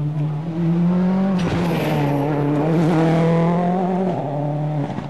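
Ford Focus RS WRC rally car's turbocharged four-cylinder engine running at high, steady revs as the car drives past at speed. A louder rush of noise comes as it passes closest, about a second and a half in, and the sound falls away near the end.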